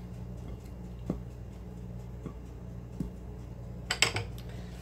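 Light taps and clicks of a silicone spatula and a glass mixing bowl of chocolate cake batter: a few faint taps, then a quick cluster of sharper clicks about four seconds in, over a steady low hum.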